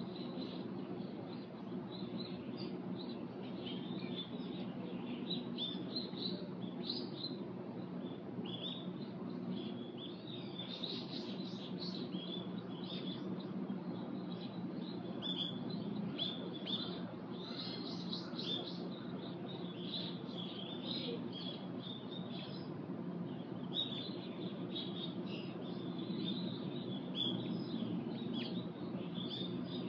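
Small birds chirping, many short high calls coming thick and fast throughout, over a steady low background hum.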